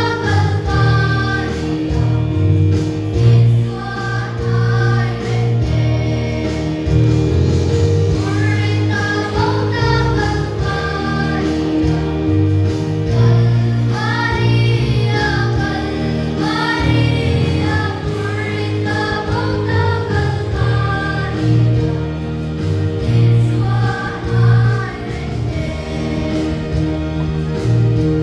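A group of young girls singing a gospel hymn together as a small choir, in phrases of a second or two, over a steady instrumental backing of sustained low notes.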